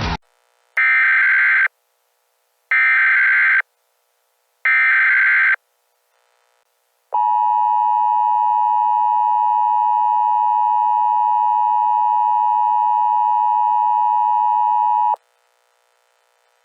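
Emergency Alert System tones: three short blasts of SAME digital header data about two seconds apart, then the steady two-tone attention signal held for about eight seconds, which announces an emergency alert message.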